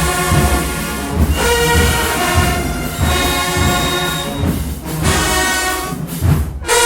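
Marching band playing: brass section sounding held chords over regular bass drum hits. Near the end the sound briefly drops out, then a new loud brass chord comes in.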